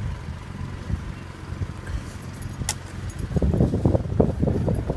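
Wind rumbling on the microphone in snowy weather, with one sharp click a little past halfway and a run of irregular soft thumps from about three seconds in.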